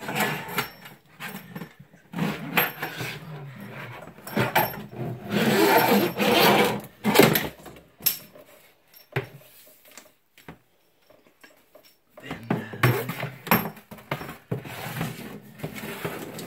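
Irregular rubbing, scraping and knocks of hands working with a water supply hose and its fittings, with a quieter pause about ten seconds in.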